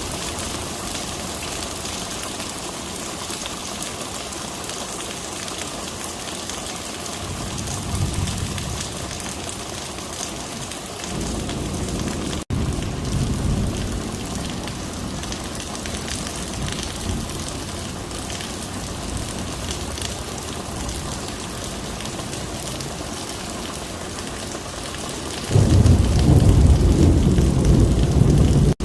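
Heavy rain pouring steadily, with low rumbles of thunder about 8 and 12 seconds in and a much louder, longer rumble near the end.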